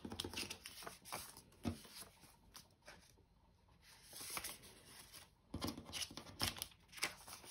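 Polymer banknotes being picked up from stacks and handled on a table: faint crisp rustles and small taps, with a quieter pause about three seconds in before the handling picks up again.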